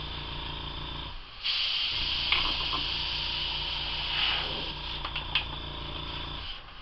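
Compressed air hissing from an airbrush nozzle as it blows poured alcohol ink across a tile, over the pulsing hum of the airbrush compressor. The hiss grows louder about a second and a half in and eases off a few seconds later; the hum stops shortly before the end.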